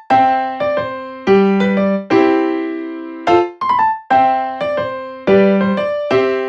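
Background music: a gentle keyboard melody of single struck notes that each ring and fade, repeating a short phrase.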